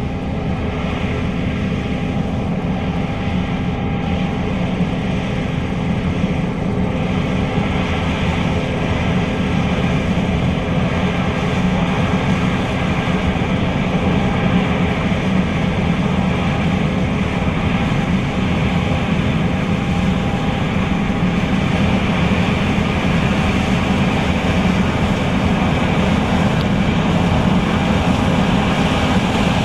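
John Deere S660 combine running steadily while harvesting soybeans: a continuous heavy machine drone that grows slightly louder over the stretch.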